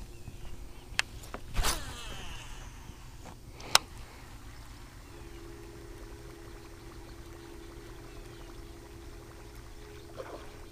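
A cast with a baitcasting rod and reel: a click, the swish of the rod, then a sharp click a couple of seconds later as the reel is engaged. A faint steady hum follows during the buzzbait retrieve.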